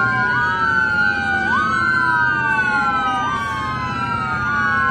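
Several emergency vehicle sirens wailing at once, their rising and falling sweeps overlapping, over a low rumble.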